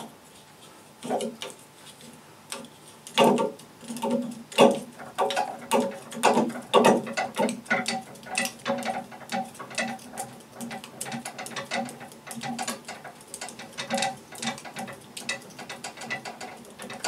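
Bowstring serving tool being wrapped around the string, laying serving thread onto the strands: a rapid, irregular run of small clicks and rattles from the tool and its thread spool.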